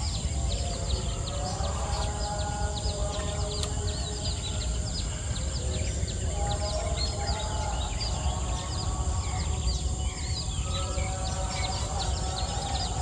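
Outdoor ambience of many birds chirping in quick short calls over a steady high insect drone and a low rumble. Soft held tones shift underneath every few seconds.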